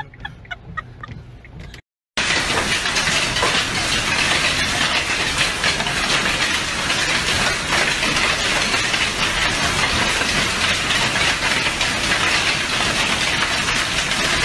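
Torrential rain pouring down in a violent storm, a loud, steady rushing hiss full of tiny spattering clicks, starting abruptly about two seconds in.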